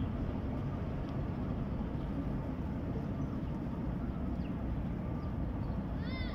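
Steady low rumble of background noise, with a brief high chirp near the end.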